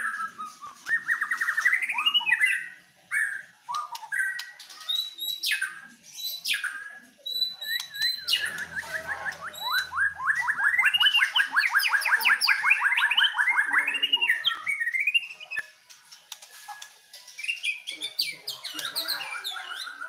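White-rumped shama singing: a string of varied whistled phrases, then a long fast trill from about eight to fourteen seconds in, then more phrases near the end. The trills are the canary song this bird always imitates, by the keeper's account.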